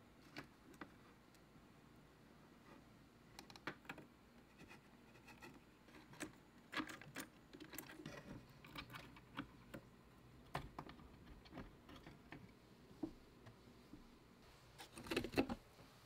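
Faint, scattered clicks and taps of pieces of cork bark being handled and set against a clear plastic box, with a louder cluster of knocks near the end.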